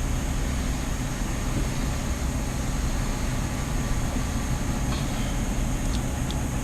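Steady low mechanical hum with an even hiss over it, and a few faint clicks about five and six seconds in.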